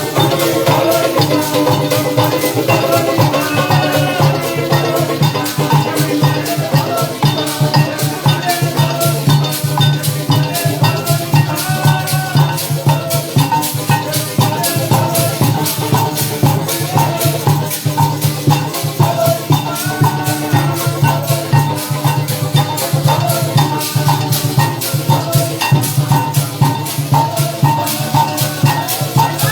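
Live parang band music: melody instruments playing stepped tunes over a fast, steady maraca shake and a drum.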